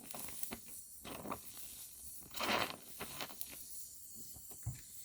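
Oxy-fuel gas welding torch working on thin car body sheet metal: scattered small crackles and clicks, with a short hiss about two and a half seconds in.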